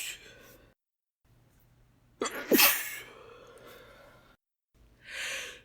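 A woman's deliberate, unstifled sneeze in a harsh 'Rrshhuh!' style, about two seconds in: a sharp start, then a loud hissing release that fades out. Near the end comes a short breathy hiss.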